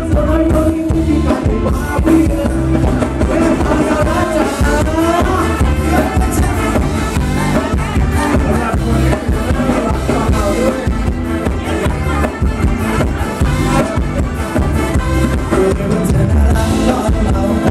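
Live ramwong dance-band music played loud through a PA: a male singer over electric guitar and drum kit, with a steady, driving beat.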